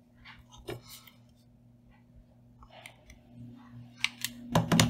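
Soft handling sounds of a fluffy pompom and craft materials being worked by hand: faint rustling and small clicks over a steady low hum, with a few sharper clicks and knocks near the end.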